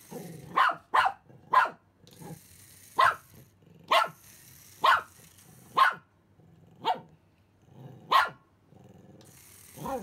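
Pomeranian barking excitedly: about nine short, sharp single barks, roughly one a second.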